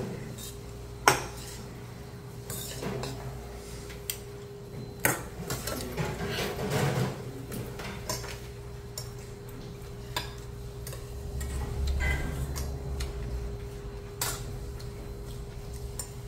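Metal spoon and chopsticks clinking and scraping against a stainless steel bowl and side dishes while barley rice with vegetables is mixed and eaten, in scattered sharp clinks, the loudest about a second in. A steady low hum runs underneath.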